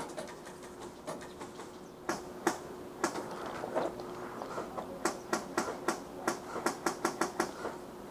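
Airsoft BBs cracking against a wooden plywood barricade: a few scattered hits, then a quick string of about a dozen sharp cracks, roughly four a second, in the second half.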